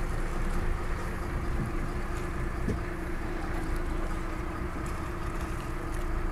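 Sport-fishing boat's engine humming steadily, under a steady rush of wind and water.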